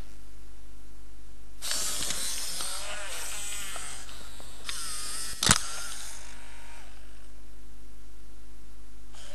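i-Cybie robot dog's servo motors whirring in two spells as it moves its legs, with wavering pitch and a sharp mechanical click in the middle of the second spell, over a steady low hum.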